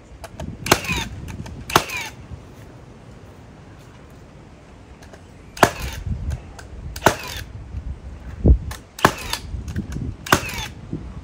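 Handheld cordless power tool run in six short, sharp bursts against a wooden board, with a heavy low thump about eight seconds in.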